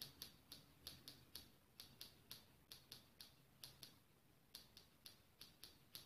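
Scissor blades snapped shut over and over in a quick run of faint, sharp clicks, about four a second with a short pause around four seconds in: a foley imitation of typewriter keys.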